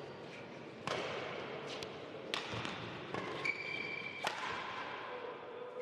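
Badminton rally on an indoor court: about half a dozen sharp racket hits on the shuttlecock, roughly a second apart, with short high squeaks of shoes on the court floor in between.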